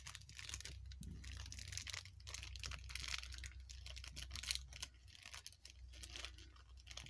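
Crinkly plastic toy packaging being handled and torn open by hand: a continuous run of rustles and sharp crackles.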